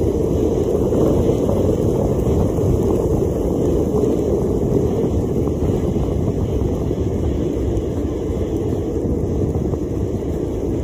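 Steady low rushing noise of wind buffeting the microphone.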